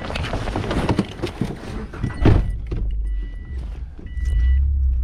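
A car being started as someone climbs into the driver's seat: rustling and handling noise, a loud thump about two seconds in, then the engine running with a low rumble. A warning chime beeps about once a second from about two seconds in, with the driver's door open.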